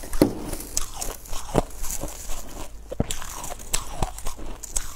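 Close-miked biting and chewing of a flaky sheet of sweet ice: irregular crisp crunches and crackles, with a few sharper snaps scattered through.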